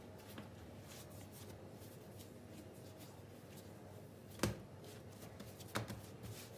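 Faint, soft handling sounds of hands pressing, dividing and shaping yeast bread dough on a granite countertop, with a sharp tap about four and a half seconds in and a smaller one shortly after.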